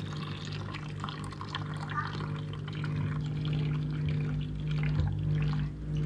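Drain water from a Whirlpool top-loading washing machine gushing out of its drain hose and splashing into a tub of water, over the machine's steady low hum as it drains.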